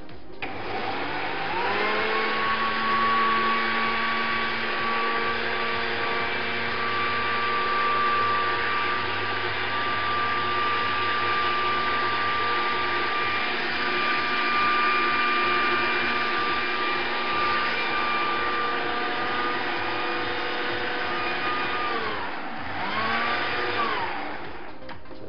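Electric grinder regrinding dry whole spices into nihari masala powder. The motor spins up with a rising whine over the first two seconds, runs steadily with a grinding hiss, and winds down near the end. It then gives one short burst before stopping.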